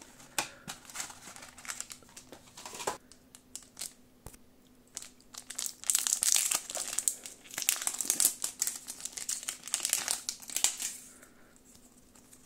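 Foil Pokémon TCG booster pack wrapper handled and torn open by hand, crinkling and crackling. Scattered crackles and clicks at first, then dense, loud crinkling about halfway through for some five seconds, settling down near the end as the cards come out.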